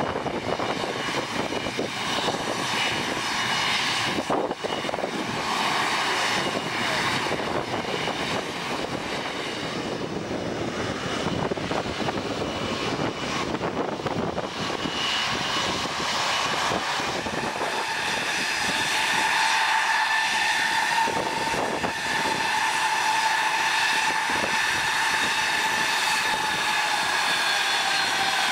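Aircraft engine noise: an Airbus A320's jet engines running at taxi power, a steady rush that gains a high whine in the second half, bending slightly down near the end. Partway through, a small twin-engine propeller plane is landing.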